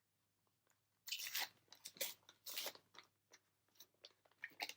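Foil trading-card booster pack wrapper crinkling and tearing open in a few short crackly bursts, followed by several light ticks.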